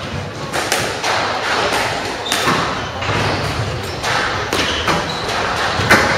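A squash rally: the ball struck by rackets and hitting the court walls in quick succession, sharp hits roughly every half second to a second ringing in the enclosed court, with a few short squeaks of shoes on the court floor.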